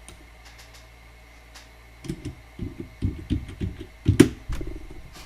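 A run of dull knocks and bumps, with one sharp click about four seconds in, over a steady low hum.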